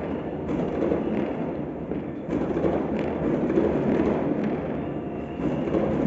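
Fireworks and firecrackers going off all over the city, heard from afar as a continuous dense rumble of overlapping bangs and crackles, with a few sharper pops standing out.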